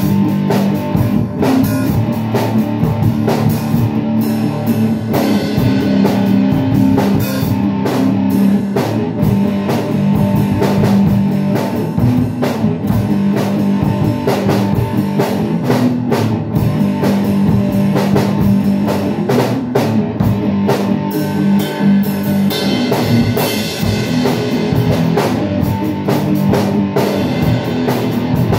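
Electric guitar and drum kit playing a rock song together, with a steady drum beat under the guitar.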